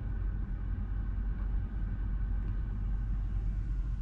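Volvo EX40 electric car driving, a steady low rumble of tyre and road noise with no engine note.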